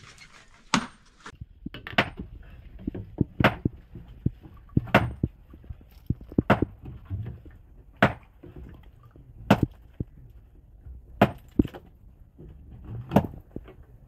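A long-handled hand tool striking rock as stone is chipped away: sharp single blows about every second and a half, nine in all.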